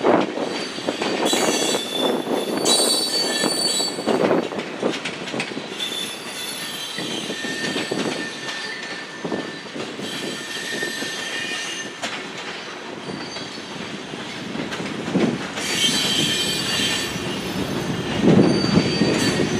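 Freight cars, covered hoppers and a tank car, rolling past. Wheels clunk over the rail joints every second or so, with high metallic squeals from the wheels coming and going.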